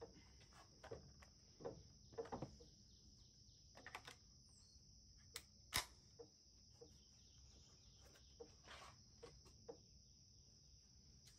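Faint, steady, high-pitched drone of insects. Over it come scattered light clicks and knocks as a rifle is handled and settled on a bench, with one sharper click about six seconds in.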